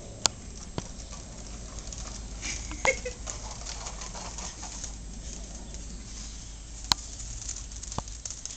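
Tricycle's plastic wheels rolling over an asphalt driveway as it is pushed, a steady rough rolling noise with a few sharp clicks.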